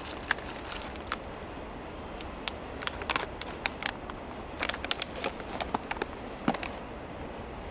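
Clear plastic clamshell packaging being handled: scattered sharp clicks and crinkles, bunched in a few short flurries.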